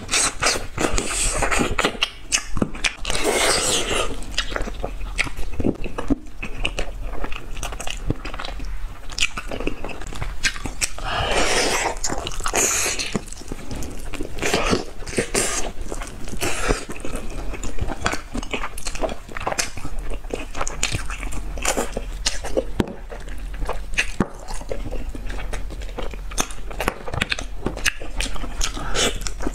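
Close-miked eating: a woman biting and chewing braised soft-shelled turtle, a steady run of quick clicks and smacks from her mouth.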